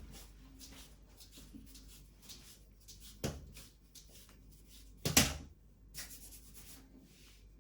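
A few sharp knocks and clunks from handling tools and wall-fitting hardware, with faint rustling between. The loudest knock comes about five seconds in.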